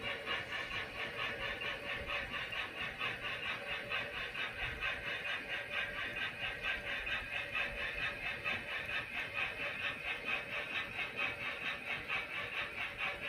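HO scale model train running past on its track: a steady, even rhythm of about four beats a second over a constant hum.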